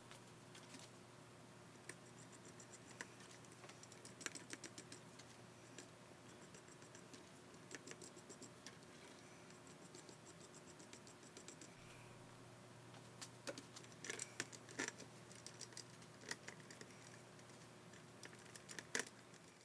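Light, irregular clicks and taps of small parts of a tin toy dial typewriter being handled and worked, over a faint steady hum.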